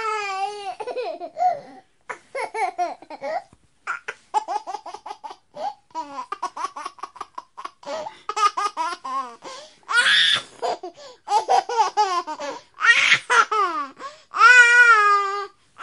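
A baby laughing: quick strings of short giggles broken by several long, high squeals, the longest near the end.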